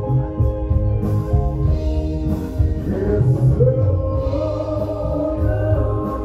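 Live band performing a song: a male singer's held notes over electric guitars, keyboards and drums.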